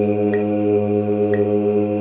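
Two tuba mouthpieces buzzed together, holding one long, steady low note, with a metronome clicking about once a second. This is a mouthpiece-buzzing embouchure exercise of long whole notes, each taken on a full breath.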